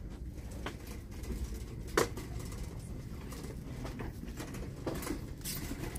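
Light clicks and knocks of small store goods being handled over a steady low hum of a shop's background, with one sharp click about two seconds in.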